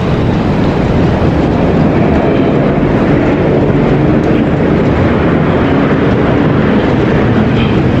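Loud, steady rumbling of a moving vehicle, even and unbroken throughout.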